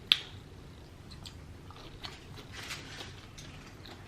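Close-miked chewing and mouth sounds of someone eating lobster tail, with a sharp click just after the start and soft wet clicks scattered after it.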